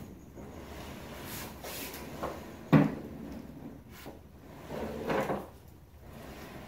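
Handling noises from something solid being moved. There is a sharp knock about three seconds in and a few lighter knocks, then a short scraping rub near the end.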